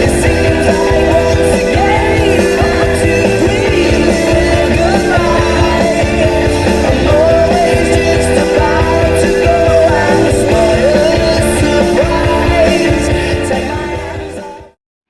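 Rock music with a sung vocal over a steady beat, fading out and stopping shortly before the end.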